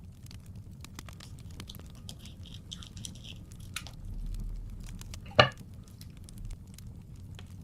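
Paper being handled and rustled for scrapbooking, a short crinkling stretch near the middle, then one sharp tap about two-thirds of the way through, over the steady low rumble and scattered pops of a crackling fireplace.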